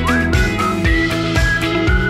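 Background music with a steady beat, about two beats a second, over held notes, with a short rising slide into a high note near the start.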